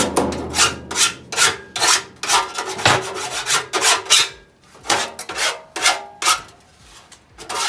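Hand file rasping along the sharp edge of a piece of steel to take the edges off, in quick back-and-forth strokes about two to three a second, with a short pause near the end.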